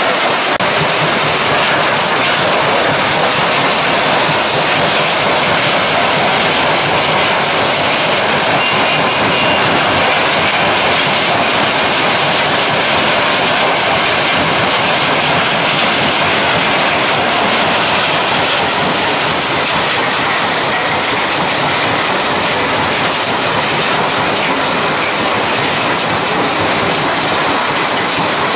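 POWERPLUS mobile stone crushing plant running: a steady, loud mechanical din of the crusher and conveyors, with crushed stone pouring off the conveyor belts onto stockpiles.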